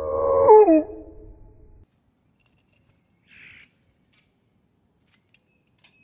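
A loud animal cry, held on one pitch and then dropping at its end, in the first second.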